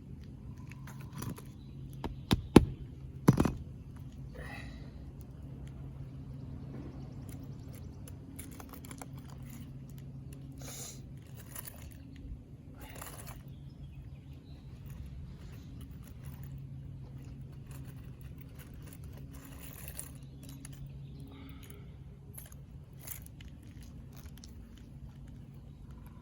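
Hammer driving a roofing nail through an asphalt shingle: four sharp blows close together about two seconds in, then scraping and crunching as the brittle shingle is handled, over a steady low hum.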